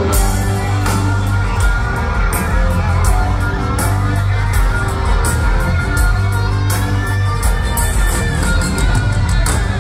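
Live rock band playing through a concert PA, heard from the audience: distorted electric guitars, bass and steady drum and cymbal hits.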